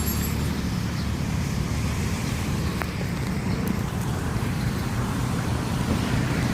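Steady low rumble of motor-vehicle traffic and running car engines.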